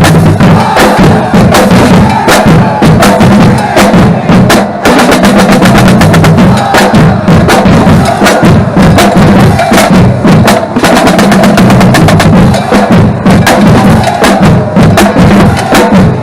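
Marching drumline playing a cadence at full volume: a dense, unbroken run of snare and bass drum strokes. It is loud enough to push the recording to its limit.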